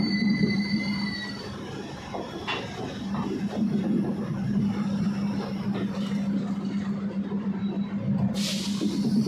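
Passenger express coaches rolling slowly past on the rails as the train pulls out, with a steady hum and a high wheel squeal during the first second or so. A short hiss comes near the end.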